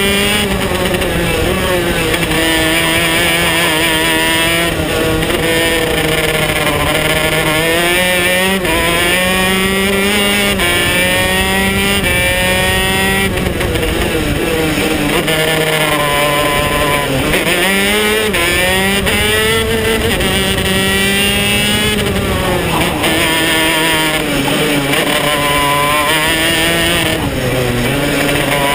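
KZ125 shifter kart's 125 cc two-stroke single-cylinder engine heard onboard at racing speed: its pitch climbs steadily under acceleration, then falls sharply several times as the kart slows for corners and picks up again.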